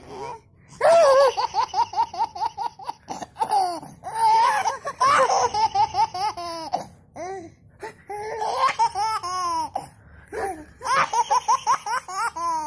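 A little boy laughing in several long bouts of quick, high-pitched laughs, with short pauses between bouts.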